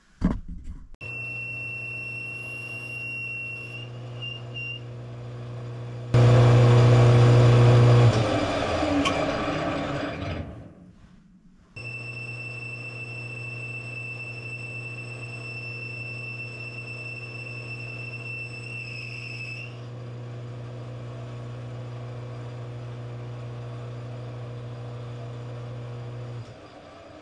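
Metal lathe running with a steady hum and a thin high whine, broken for about two seconds by a much louder, rough noise, then running steadily again until it stops near the end.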